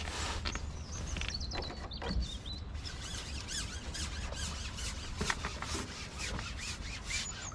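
Carbon match-fishing pole being shipped out, its sections rubbing and squeaking as it slides out over the water.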